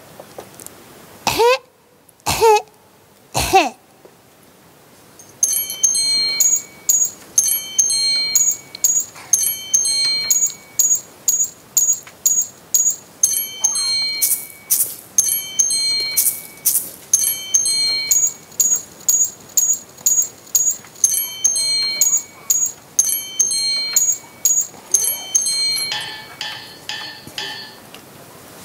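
Three short whistle-like bird calls, each sliding in pitch, then a long run of high, bell-like chiming notes in repeating short phrases, like wind chimes, turning to a softer shimmer near the end.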